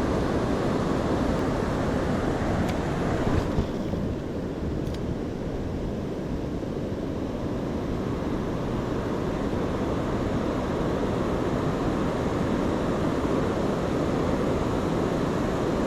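Steady rush of water pouring over a dam, a dense even noise that is strongest in the low range; the higher hiss eases a little about four seconds in.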